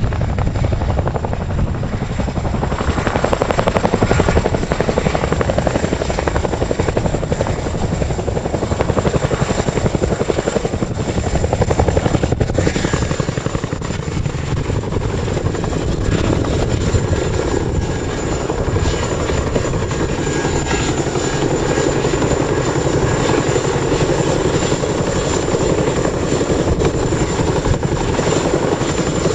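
Boeing CH-47 Chinook tandem-rotor helicopter in flight, its twin turboshaft engines and two rotors running steadily: a fast, even rotor beat with a thin, high, steady whine over it.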